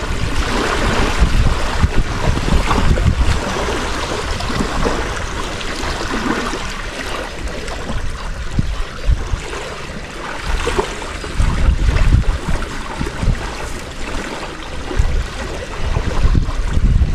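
Wind buffeting the microphone in gusts, over small lake waves lapping at the shore.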